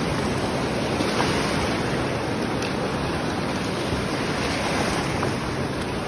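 Ocean surf washing up the beach into the shallows: a steady rush of breaking and draining water.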